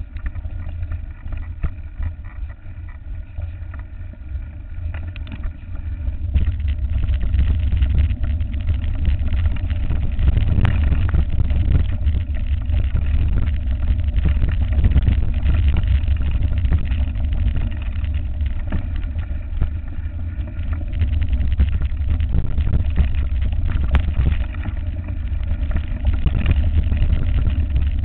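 Wind rumble and rattling on a camera mounted on a mountain bike as it rides over a rough dirt track, with frequent knocks from bumps coming through the frame. It gets louder about six seconds in, as the bike picks up speed.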